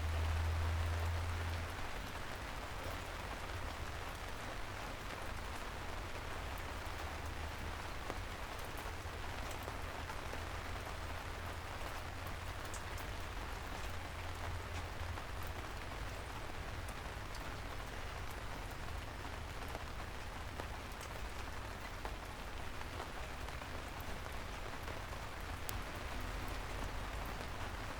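Gentle rain falling steadily on city streets, an even hiss with scattered drop ticks over a low steady rumble. The rumble is a little louder for the first couple of seconds.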